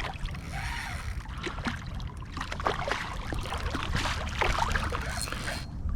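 River water trickling and splashing, with scattered faint clicks and taps.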